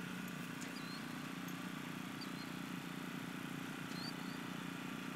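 A steady low mechanical hum, with a bird's short chirps repeating about every one and a half seconds.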